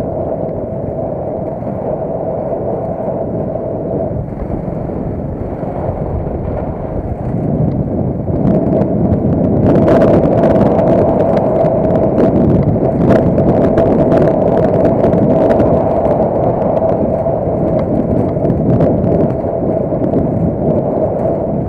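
Vehicle engine running steadily on the move with a constant hum, getting louder about eight seconds in, with a run of sharp clicks and rattles in the middle.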